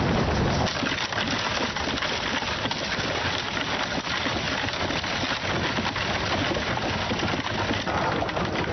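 Horse-drawn carriage rolling along the road: a steady rattling rumble from its wheels.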